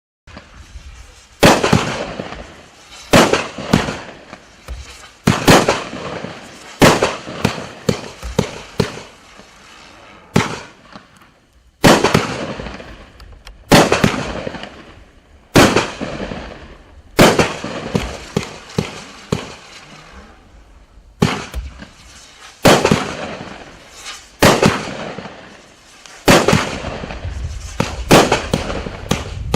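A 36-shot, 500 gram consumer firework cake firing its shots in sequence. There are loud bangs about every one and a half to two seconds, each trailing off, and they come faster and overlap near the end.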